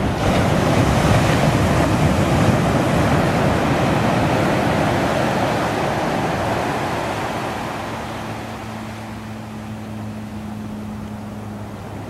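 Pacific Ocean surf breaking on the shore: a wave crashes just as the sound begins, and its foam rushes up the beach, the noise slowly dying away through the second half. A faint steady low hum comes in about two-thirds through and lasts almost to the end.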